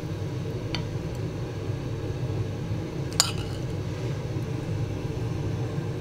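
A metal spoon clinks against a pan as sautéed oyster mushrooms are spooned out, two clinks with the louder one about three seconds in, over a steady low hum.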